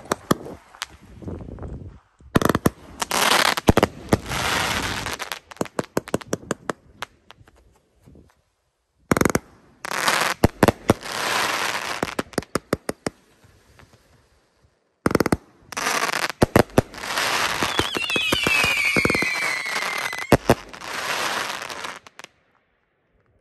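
A Happy Family 'Storm Warning' 52-shot consumer firework cake firing: rapid shots and bursts with long stretches of crackling, in about three volleys with short pauses between them. A falling whistle sounds during the last volley, and the firing ends shortly before the close.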